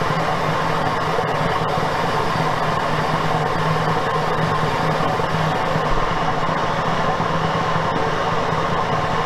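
Metal lathe running steadily with an alloy wheel spinning in it while a carbide-insert boring bar cuts the wheel's center bore. The sound is an even machine noise over a steady low hum.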